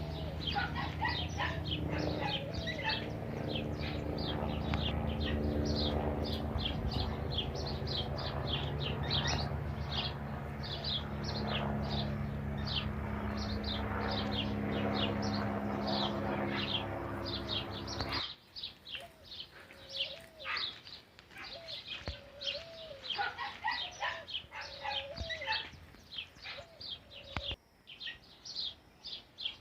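Many small birds chirping and singing rapidly and continuously, with a steady low hum under them that stops abruptly about two-thirds of the way through. After that the birds go on alone, with some lower, curved calls among them.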